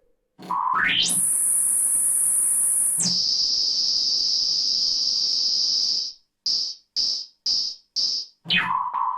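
Pink noise played through a MIDI-controlled Brüel & Kjær measurement filter, heard as pitched bands of hiss. A band slides up from low to a high hiss and holds, steps down to a middle band and holds, then gives four short blips about two a second. It then slides down to a lower hiss near the end, with faint clicks where the notes change.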